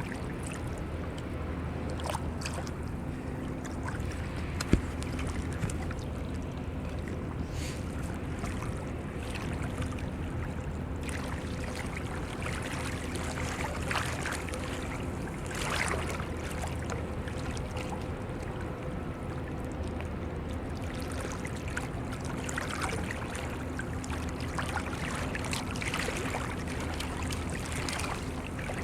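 A steady low motor hum under wind and water noise, with a few short clicks, the sharpest about five seconds in.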